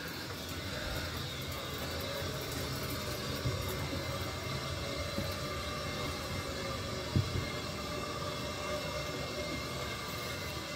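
Water running into newly plumbed copper and PEX supply lines just after the main valve is cracked open: a steady rushing sound as air escapes and the pipes fill. One light knock about seven seconds in.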